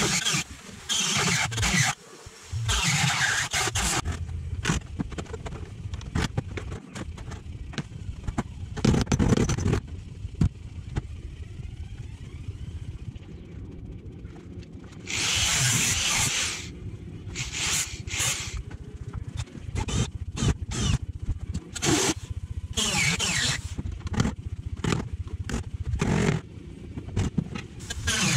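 Power drill boring into the steel body panel in repeated short bursts, drilling out spot welds to free the rusted top dash rail, with metal-on-metal clatter and knocks between the bursts.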